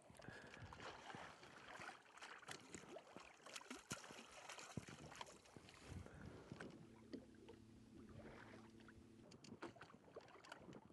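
Faint open-water sound from a small fishing boat: light water and wind noise with scattered small clicks, and a faint low hum for about two seconds in the second half.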